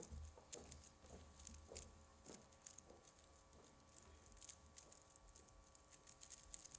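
Rubik's Cubes being turned fast in a speed-solve: a faint, irregular patter of small plastic clicks.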